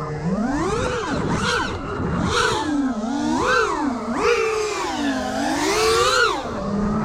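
Brushless motors and propellers of a 5-inch FPV quadcopter whining, the pitch rising and falling about five times as the throttle is punched and backed off in freestyle flight. Brief rushes of wind come through about one and a half and two and a half seconds in.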